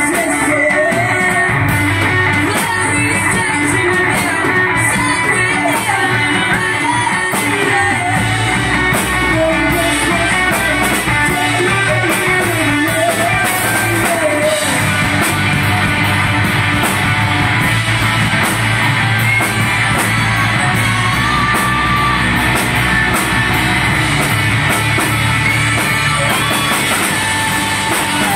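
Live rock band playing amplified: electric guitars, bass guitar and drum kit, with a sung vocal line over them.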